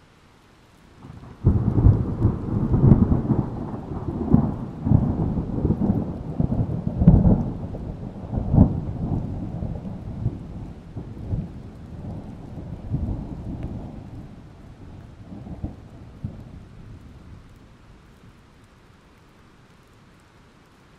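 Thunder: a sudden clap about a second and a half in, then a rolling rumble with several louder cracks that slowly fades away over about fifteen seconds.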